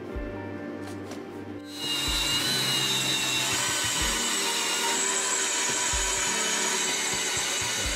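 Background music, then from about two seconds in a power tool cutting steadily into a steel plate: a loud, even hiss with high whining tones over the music.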